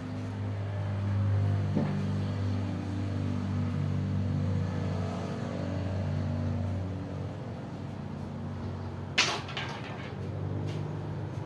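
A low, steady engine-like hum that wavers slowly in pitch, with one brief sharp clatter about nine seconds in.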